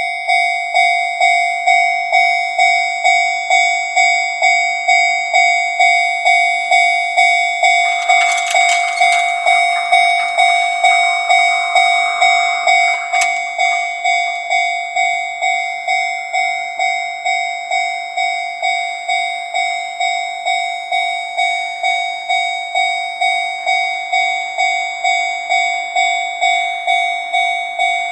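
Japanese railway level-crossing warning bell ringing, its electronic bell tone repeating in a quick, even rhythm. A brief noisy rush joins it about eight seconds in and stops with a click about five seconds later.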